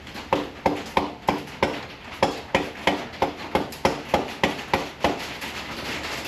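Hammer tapping steadily on a 3/8-inch socket extension used as a drift, driving the rear axle out of a Harley-Davidson Dyna Super Glide's swing arm: about fifteen sharp, slightly ringing metal knocks, roughly three a second, stopping about five seconds in.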